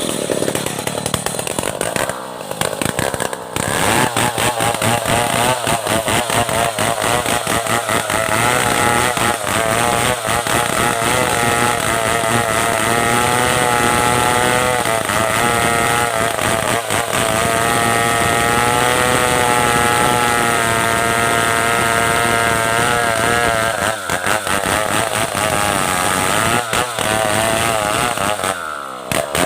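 Stihl 070 two-stroke chainsaw running at high revs as it cuts through merbau hardwood, its pitch wavering under the load of the cut. It eases off briefly about two seconds in and winds down with a falling pitch near the end.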